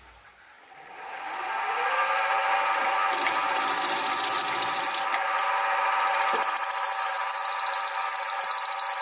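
Sieg SX2P mini mill's spindle motor starting and spinning up with a rising whine over about two seconds, then running steadily. From about three seconds in, a high scraping hiss joins it, on and off, as the end mill cuts the side of the small end of the eccentric strap.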